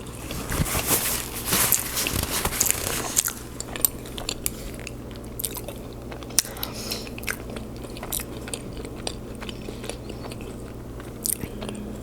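A person chewing and smacking a mouthful of food close to the microphone. The chewing is louder and denser for about the first three seconds, then quieter with scattered sharp mouth clicks.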